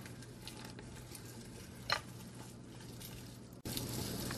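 Quiet kitchen with a single faint click about two seconds in, as nuts and dried fruit are handled in a plastic mixing bowl. A steady hiss starts abruptly near the end.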